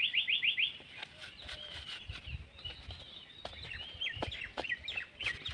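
Small wild birds chirping: a quick run of about seven repeated chirps at the start, then scattered calls throughout, over a low outdoor background with a few light clicks of handling.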